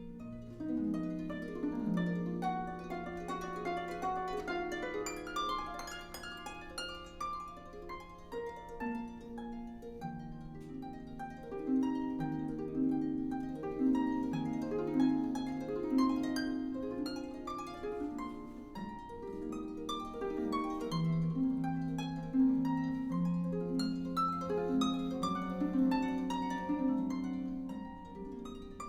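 Solo concert harp music: quick rippling runs of plucked notes over ringing lower notes.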